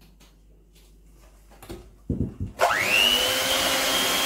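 A couple of soft knocks, then an electric hand mixer switches on about two and a half seconds in: its whine rises quickly as the motor spins up, then runs steadily while the beaters work flour into the egg-and-sugar batter in a glass bowl.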